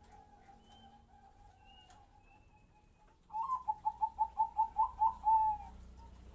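Zebra dove (Thai perkutut bangkok) singing. After a faint, wavering coo, a loud song starts about three seconds in: a rising first note, then about ten quick rhythmic coos, ending in a longer drawn-out coo.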